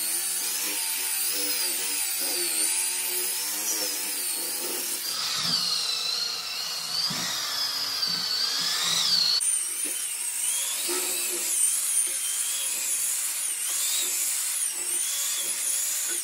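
Electric rotary polisher with a foam pad buffing carnauba wax into a marble tabletop: a steady high motor whine that wavers in pitch as the pad is worked across the stone, changing abruptly about nine seconds in.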